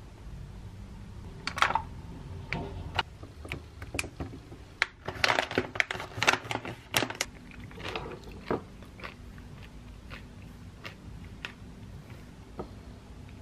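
Granola and yogurt being eaten from an enamel bowl with a wooden spoon: scattered crunches and clicks, busiest around the middle.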